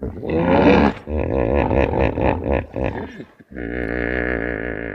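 Hippopotamus calling: a loud, rapid pulsed series of grunting honks for about three seconds, then, after a brief break, one long droning call with a wavering pitch.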